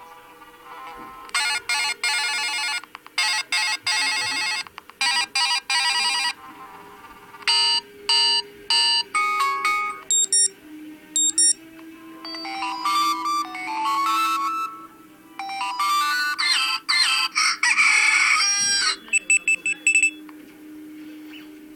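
Stock Android tones from the DEXP Ursus NS110 tablet's speaker, played one after another: a run of short electronic chimes, beeps and little melodies, each lasting from under a second to about two seconds. One of them, about three quarters of the way through, is a rooster crow. A faint steady hum lies underneath.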